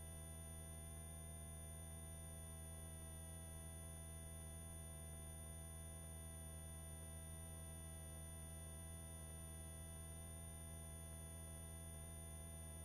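Faint, steady drone of a helicopter in cruise, carried through the cabin intercom: a low hum with fainter higher tones held above it, unchanging throughout.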